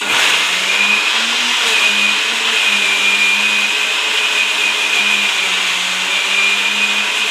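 Electric mixer grinder switched on and running, grinding grated coconut, garlic and spices with a little water into a smooth chutney-like paste. It starts abruptly and runs steadily, a low motor hum under a high whine.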